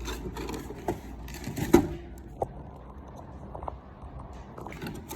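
Packaging being handled while a figure is unboxed: rustling with scattered sharp clicks and snaps, the loudest about two seconds in.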